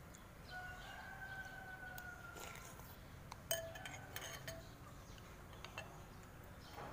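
Faint clinks of a metal spoon and chopsticks against a ceramic bowl, the sharpest about three and a half seconds in with a brief ring. Before them, a faint held tone drifts slightly lower for about two seconds.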